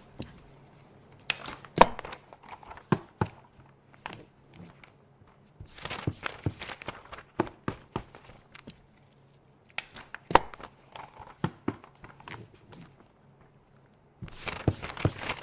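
Sheets of office paper being handled: bursts of rustling broken by sharp clicks and taps, the loudest about two seconds in and again about ten seconds in.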